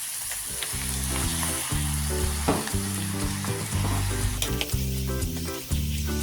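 Ground meat sizzling as it fries in a pan, over background music with steady, stepping low notes.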